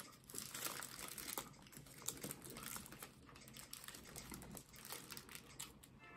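Faint, irregular crinkling of a paper burger wrapper being handled, with quiet chewing of a burger mouthful.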